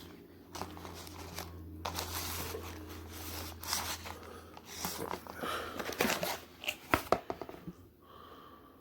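Paper fast-food packaging crinkling and rustling as it is handled and unwrapped, with irregular sharp crackles.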